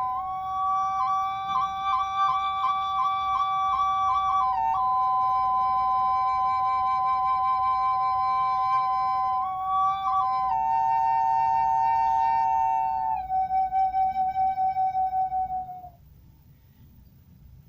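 Dakota-style double flute playing: one pipe holds a steady drone while the other plays the melody above it, with quick flutters in the first few seconds. Near the end the drone pulses about five times a second, then the playing stops briefly.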